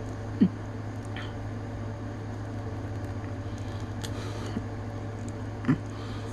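Small plastic clicks and taps of an action figure and its accessories being handled, two sharper clicks about half a second in and near the end, over a steady low electrical hum.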